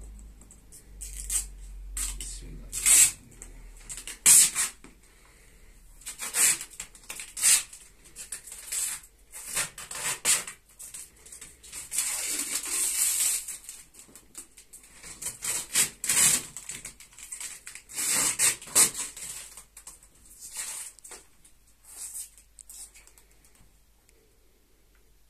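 Plastic protective film crinkling and rustling in irregular bursts as it is peeled and pulled off a TV screen protector.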